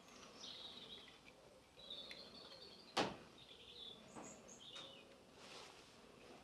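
Faint birdsong, short chirping phrases on and off. A single sharp click or knock about halfway through.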